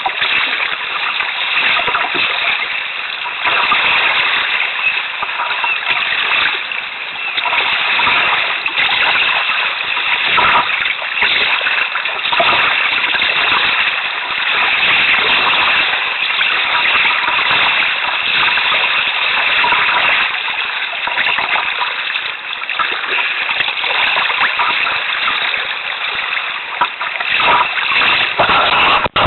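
Sea water splashing and sloshing around a kayak on a choppy sea: a steady wash broken by frequent irregular splashes.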